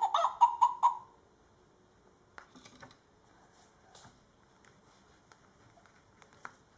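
Recorded chicken clucking from a toy sound book's small speaker: a quick run of about half a dozen clucks in the first second. After that, only faint clicks of hands handling the book and toys.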